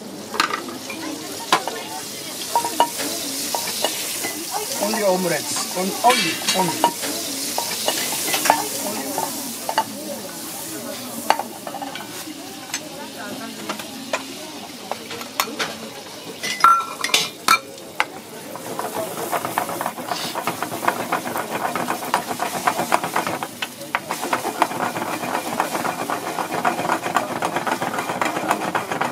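Butter sizzling in a nonstick frying pan on a gas burner. Beaten egg is poured in about halfway through and sizzles as it is stirred with wooden chopsticks, which click against the pan.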